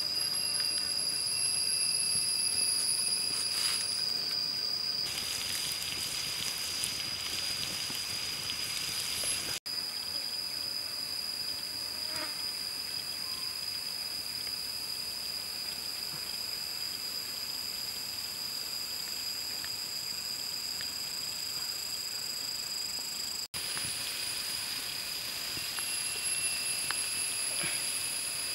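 A steady, high-pitched drone of insects: several continuous tones held throughout.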